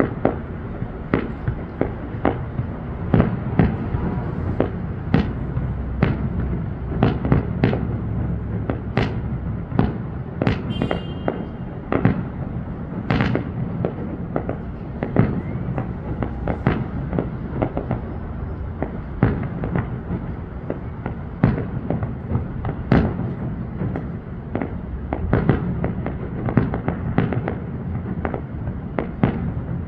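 Fireworks display: a continuous run of sharp bangs at irregular spacing, often several a second, over a steady low rumble of echoing reports.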